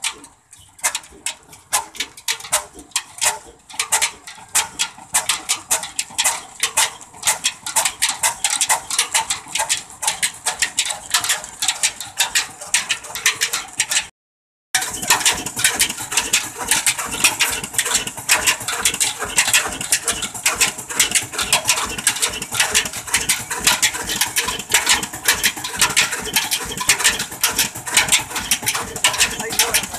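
Old Ruston Hornsby single-cylinder stationary diesel engine running with rapid, sharp, regular beats that quicken and grow louder over the first several seconds as it picks up speed, then carry on steadily. The sound briefly drops out about halfway.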